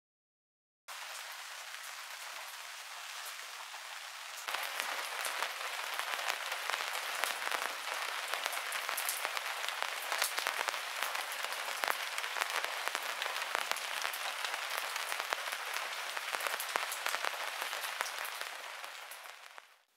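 Rain falling on hard surfaces: a steady hiss full of tiny drop ticks that starts about a second in, gets heavier about four and a half seconds in, and fades out near the end.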